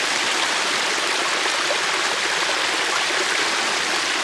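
A small hill stream cascading over a short rocky step, a steady rush of water.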